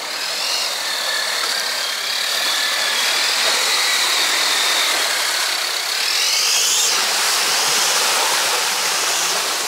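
Off-road 4x4's engine running steadily under a noisy rush, with a high thin whine that wavers and climbs about six to seven seconds in.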